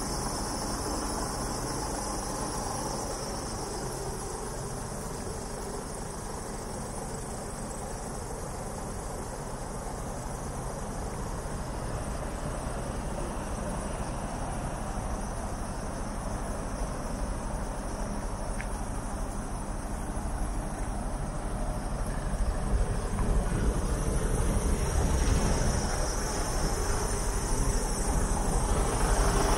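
Mercedes Actros 2551's 510 hp straight-six diesel engine idling steadily, with a steady high-pitched whine above the low rumble. It grows louder over the last several seconds.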